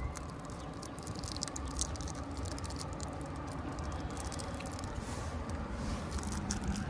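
Outdoor street ambience: a steady low rumble with scattered light crackling ticks, and an approaching car's engine and tyre noise growing near the end.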